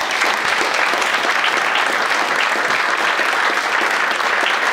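Audience applauding, many hands clapping at a steady, even level.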